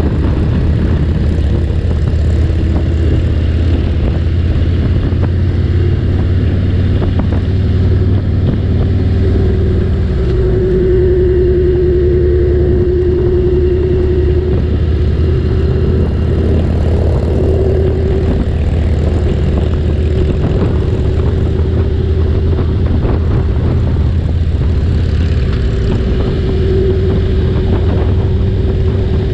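Harley-Davidson Road King's V-twin engine running steadily at highway cruising speed, a low drone with a steady hum above it, mixed with road and wind noise.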